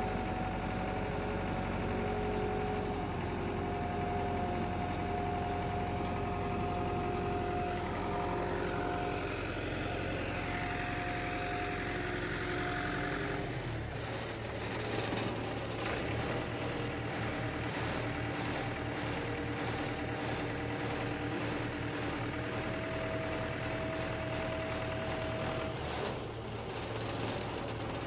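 Concrete transit mixer truck's diesel engine idling steadily while the operator sets the drum control lever for washing the drum. The engine note changes abruptly about halfway through.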